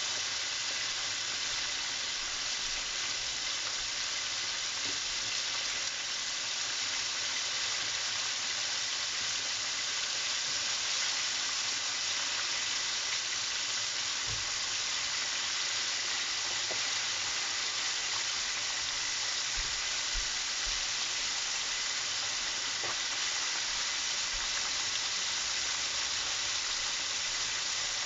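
Southern fried chicken pieces deep-frying in a pan of hot oil: a steady, even sizzle.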